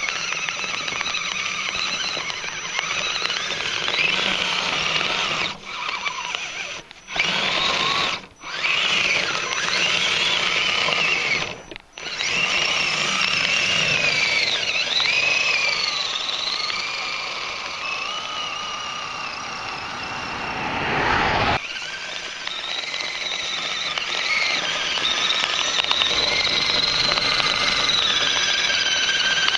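RC crawler truck on track units, its electric motor and gearbox whining as it drives through snow. The pitch rises and falls with the throttle, and the whine cuts out briefly several times in the first half.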